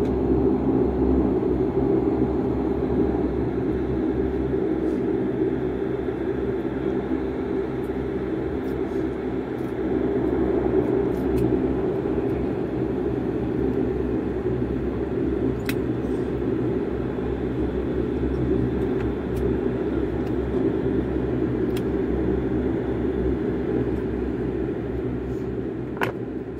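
Cabin noise of a Bombardier Dash 8 Q400 taxiing: its Pratt & Whitney PW150A turboprops running at low power, a steady propeller drone that swells slightly about ten seconds in. A single sharp click near the end.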